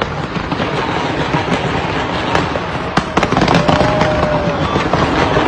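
Fireworks display going off in a dense, continuous barrage: a steady crackling rush with sharp bangs scattered throughout.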